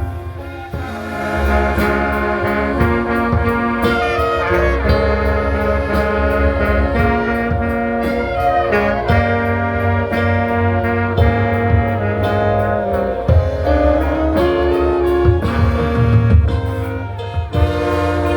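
An orchestra playing a piece, with held notes over a steady bass line.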